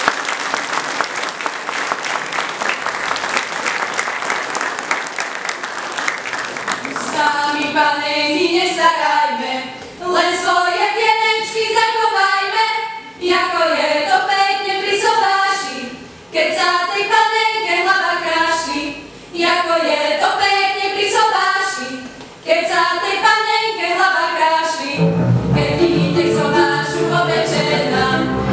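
Applause, then a group of women's voices singing a Slovak folk song unaccompanied in short phrases, with a breath between each. Near the end the string band with double bass comes in under the singing in a steady dance rhythm.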